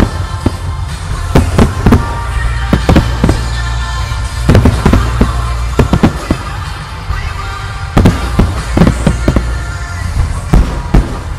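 Fireworks bursting: aerial shells and rows of rising comets going off in clusters of sharp bangs, with music playing underneath.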